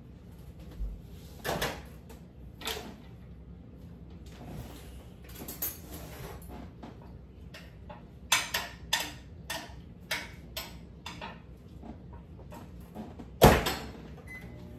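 Kitchen clatter of food containers and jars being handled and set down on a counter: scattered clicks and knocks, a quick run of them midway, and one sharp, loud knock near the end.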